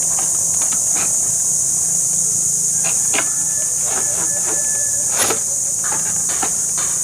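Scattered clicks and knocks of parts being handled and fitted back into a window-type air conditioner, with one sharper knock about five seconds in, over a steady high hiss.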